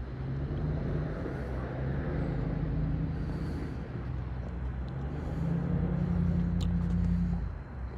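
Steady low engine rumble with a humming tone that shifts in pitch and swells about two thirds of the way through.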